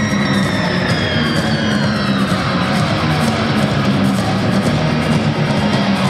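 Floor-exercise music played through a loudspeaker: rock with guitar and drums and a steady beat.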